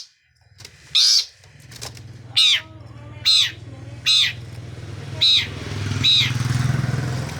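Long-tailed shrike (cendet) giving six short, harsh calls, each sweeping downward in pitch, spaced about a second apart, over a steady low hum.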